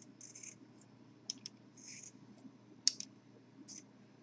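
Faint, scattered clicks and short scratchy rasps from close-up handwork on a rebuildable dripping atomizer as the wicking is trimmed and tucked. The sharpest click comes nearly three seconds in.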